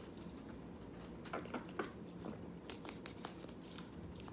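A person chewing a mouthful of jjajangmyeon noodles close to the microphone: soft, wet mouth clicks and squishes, a few at a time, over a faint steady hum.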